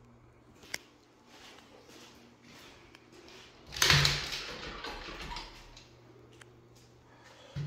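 Mirrored sliding closet door pushed open along its track about four seconds in: a loud, sudden slide that fades over a second or so. A single sharp click comes under a second in.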